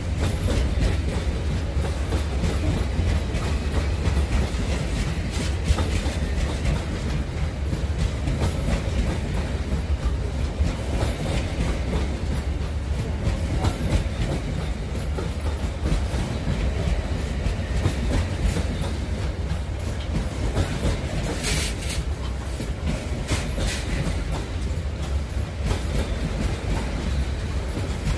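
Open gondola freight wagons of a pig-iron train rolling past close by: a steady low rumble with the clickety-clack of wheels over the rail joints.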